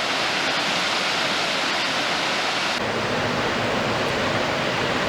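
Millard Falls in high flow: a steady, loud rush of falling water. About three seconds in, the rush shifts to less hiss and more low rumble.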